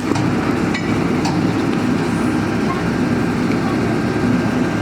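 Borehole drilling rig running steadily, a dense machine noise with a few light metallic clinks about a second in.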